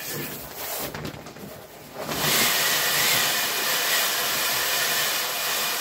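Air rushing out of the one-way exhaust valve of an Exped Megamat 10 LXW self-inflating sleeping pad as the folded pad is pressed down under a kneeling person's weight. It is a loud, steady hiss that starts suddenly about two seconds in, after some quieter handling noise.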